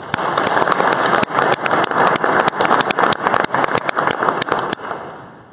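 Audience applauding, a dense patter of many hands clapping that starts suddenly and dies away about five seconds in.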